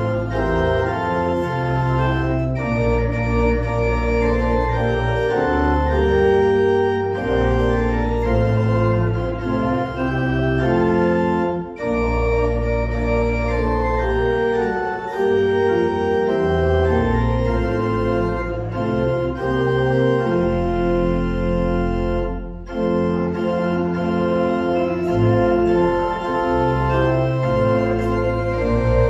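Church organ playing slow, sustained chords over deep bass notes, with two short breaks between phrases.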